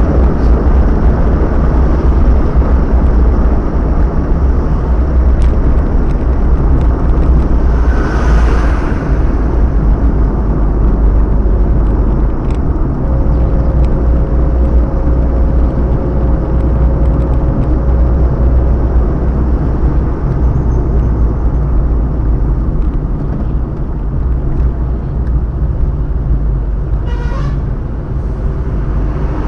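Car driving at speed on a highway, heard from inside the cabin: a steady, loud low rumble of engine and road noise. A short, higher pitched sound cuts in near the end.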